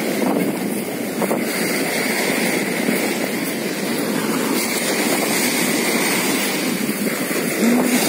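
Waves of a rough sea breaking and washing up a sand-and-shingle beach in a steady rush of surf.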